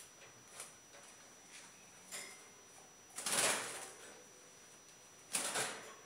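Scuffling and rattling in a small wire birdcage as a bird is grabbed with a towel: a few light clicks, then two short, noisy bursts of rustling and scrabbling, about three seconds in and again near the end.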